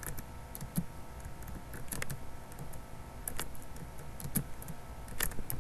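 Typing on a computer keyboard: irregular keystrokes, a few scattered clicks a second, over a faint steady hum.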